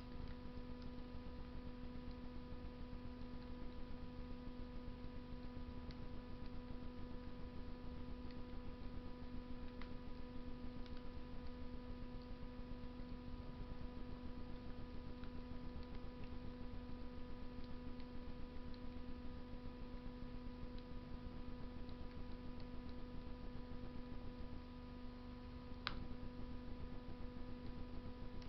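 Wood fire burning in a Russian masonry stove: faint, irregular crackling ticks with one sharper crack near the end. A steady electrical hum runs underneath.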